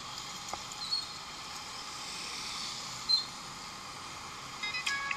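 Steady outdoor background hiss with two brief high chirps, one about a second in and a louder one about three seconds in. Background music with a ticking beat starts near the end.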